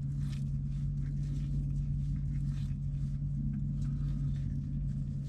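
A steady low machine hum, with faint small clicks and handling noises on top.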